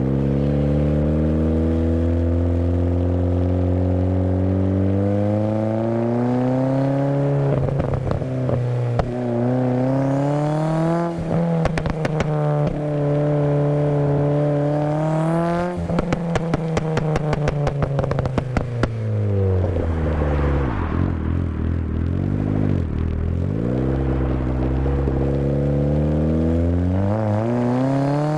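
Turbocharged Mk1 Mazda MX-5's 1.6-litre four-cylinder engine revving up steadily and then coming off throttle, several times over. Each let-off brings a rapid run of crackles and pops from the exhaust, produced by an ECU map tuned for overrun pops and bangs.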